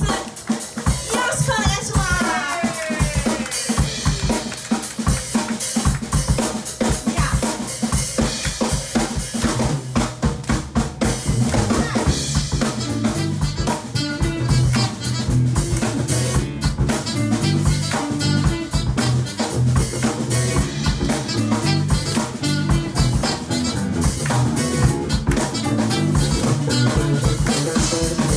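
Live rock band music led by a drum kit, with rapid snare, rimshot and bass drum strokes; a bass line comes in about ten seconds in.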